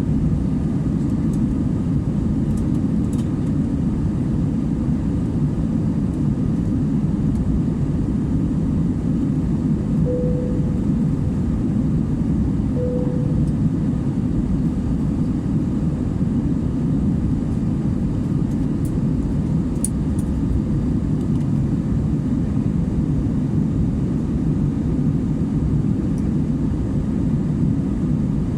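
Steady low rumble of airliner cabin noise in flight, engine and airflow sound, with two faint short tones about ten and thirteen seconds in.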